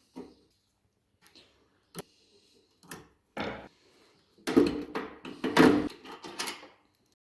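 Clicks, knocks and rattles of hard parts being handled, a few separate ones at first, then a burst of louder clatter in the second half.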